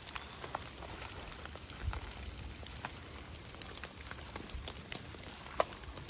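Steady rain falling, with scattered drops tapping close by and one sharper tap about five and a half seconds in.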